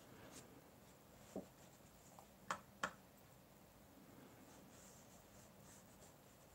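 Near silence, with faint scratching of a paintbrush and a few light taps from the brush and the plastic watercolour palette. The loudest are two sharp clicks a third of a second apart, about halfway through.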